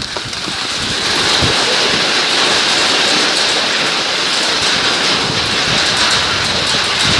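Hail and rain falling hard: a dense, steady hiss and patter that gets louder about a second in and holds.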